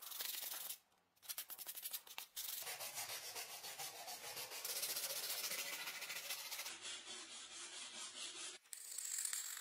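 Sandpaper rasping on a wooden knife-handle scale as it is sanded by hand in quick back-and-forth strokes. The rasping breaks off abruptly a couple of times.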